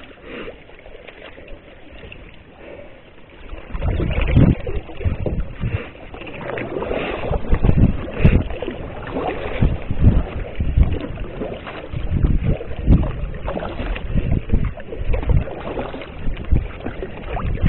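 Kayak paddling: paddle strokes and water washing around the hull. It gets louder about four seconds in, with gusts of wind rumbling on the microphone.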